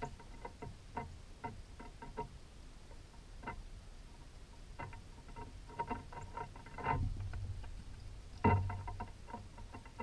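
Blue jay's bill and feet clicking and tapping on a metal bird feeder pole and feeder, a few sharp ringing ticks a second, picked up through the pole the camera is clamped to. Two heavier knocks, about seven and eight and a half seconds in, are the loudest sounds.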